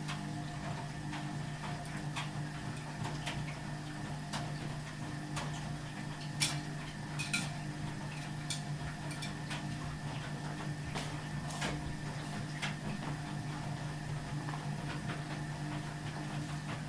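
Ardo washing machine running: a steady low hum with irregular light clicks and knocks over it, the sharpest about six and a half and seven and a half seconds in.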